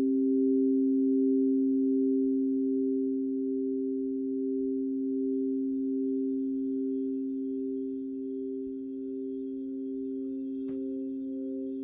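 Crystal singing bowls, tuned to 528 Hz, ringing together in a steady, sustained blend of three pure tones that slowly fades.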